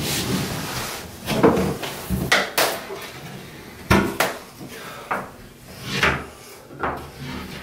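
Several irregular knocks and clatters of a level and broken hard pieces against a fiberglass tub, each short and sharp.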